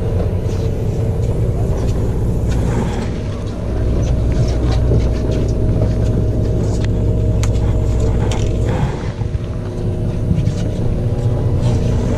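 Boat engine running steadily with a low hum, with scattered clicks and knocks over it.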